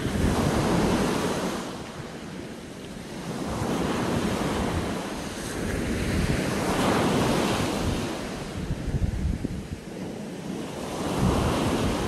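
Small waves breaking and washing up the shore, the surf swelling and falling away about four times, with wind rumbling on the phone's microphone.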